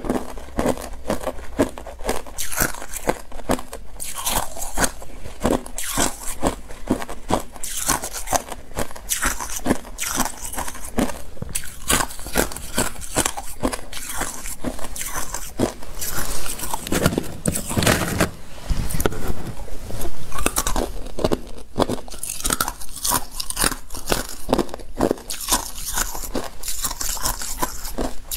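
Hard clear ice being chewed: a dense, irregular run of sharp crunches and cracks, with a louder, fuller stretch about two-thirds of the way through.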